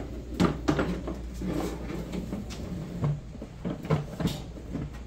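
Irregular metal clunks and knocks from a heavy stainless-steel double-boiler extractor and its steel stand as the machine is tilted over onto its side, over a steady low hum.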